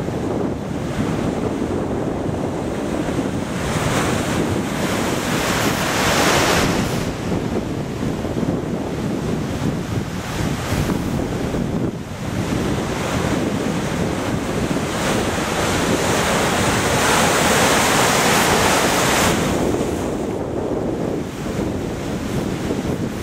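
Rough sea waves breaking and surging against a concrete pier wall, with wind buffeting the microphone. The surf swells louder twice, around five seconds in and again from about fifteen to nineteen seconds.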